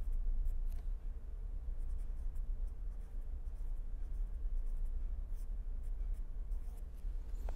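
Pen writing on paper: short, irregular scratching strokes over a low steady hum.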